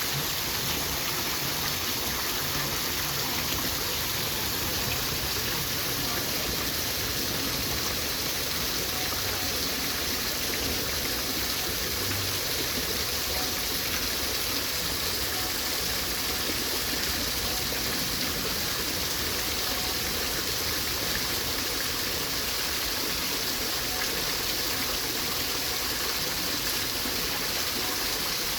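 Waterfall: water falling and splashing in a steady, unbroken rush, strongest in the high hiss.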